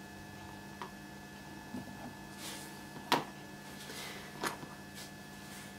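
A few light clicks and taps from handling on a craft cutting mat, the sharpest about three seconds in and another a second and a half later, over a faint steady hum.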